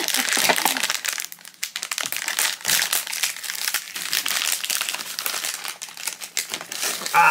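Foil blind-box pouch crinkling as hands open it and pull out a figure in a crinkly clear plastic bag, in a run of irregular crackles.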